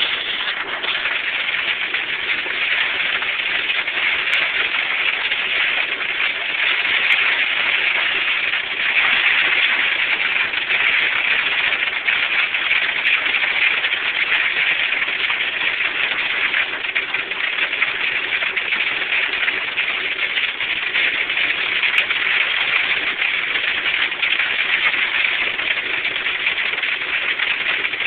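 Hail and rain coming down hard, a dense, steady hiss of countless hits that swells slightly about nine seconds in.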